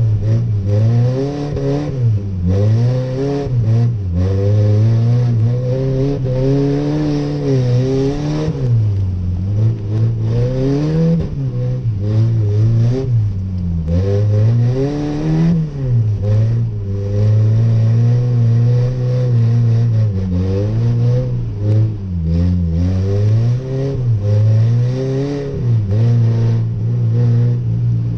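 Chevy S10 pickup's engine heard from inside the cab, revving up and dropping back again and again while the truck is drifted on snow, over a steady hiss of tyre and road noise.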